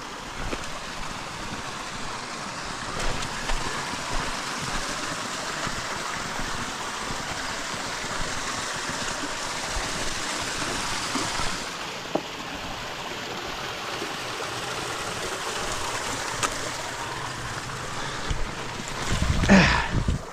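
Shallow creek water flowing steadily with a continuous rush, a few faint knocks scattered through it, and a short louder burst near the end.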